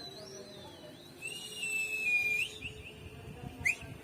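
Whistling: a wavering whistle fades out at the start. About a second in, a steady held note ends in a quick upward flick. Short arching chirps of whistle begin near the end.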